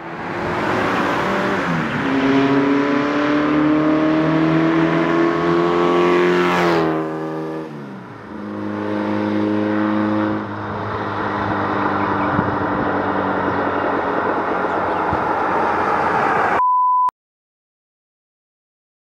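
Air-cooled Volkswagen Beetle engine accelerating hard, its pitch climbing for several seconds, falling sharply about seven seconds in, then climbing again and running steady. Near the end it cuts off and a short steady beep tone sounds.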